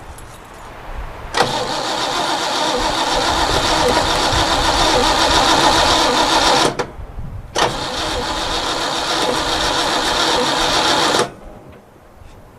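1962 Chevrolet engine cranking on its starter in two long tries of about five and four seconds, each cut off abruptly, without catching and running.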